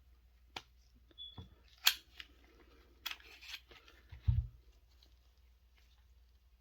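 Sharp metallic clicks and light knocks of small pistol parts being handled during takedown of a Browning 1911-22, with a low thump about four seconds in.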